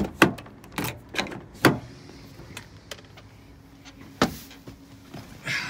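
Dodge Dakota pickup's door handle and latch clicking and knocking as the locked door is worked open: several sharp clicks in the first two seconds and one more loud click about four seconds in.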